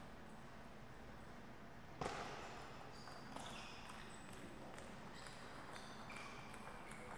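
Table tennis play: a sharp, loud crack of the celluloid-type ball struck off a paddle or the table about two seconds in, with a brief ringing tail, then a fainter click about a second later.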